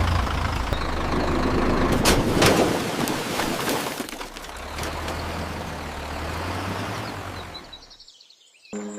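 Cartoon earthquake sound effect: a deep, steady rumble with sharp cracking about two seconds in, dying away near the end.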